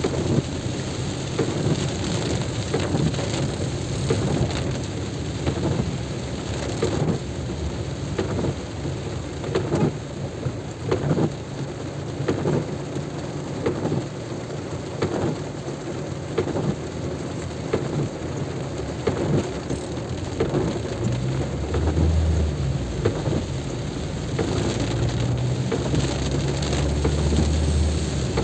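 Heavy rain falling, with many close drop hits on or near the microphone. A low rumble swells about three-quarters of the way through and again near the end.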